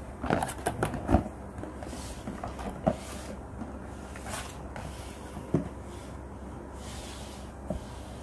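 Cardboard box being closed and handled: a quick cluster of knocks and flap sounds in the first second or so, then cardboard rubbing and scraping with a few single taps.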